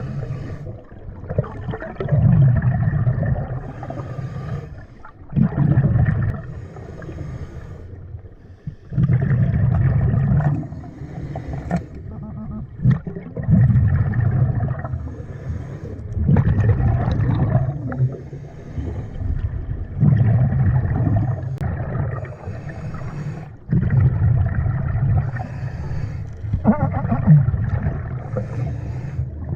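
Scuba diver's regulator heard underwater: rhythmic breathing, each exhalation sending out a loud rumbling gush of bubbles about every three to four seconds, with quieter inhalations between.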